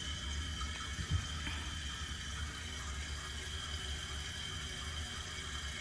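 Water running in through the newly connected supply line as the toilet and bidet seat fill back up, a steady hiss with a low hum underneath. A small knock sounds about a second in.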